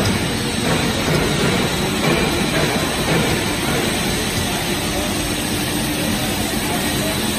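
Steady drone of a running plastic sheet extrusion line: the extruder's electric drive motor and feed equipment running, with a faint steady hum underneath.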